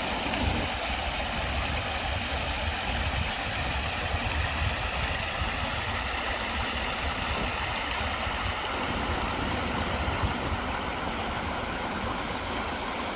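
Shallow creek running over rocks and small riffles: a steady hiss of rushing water with a low rumble underneath.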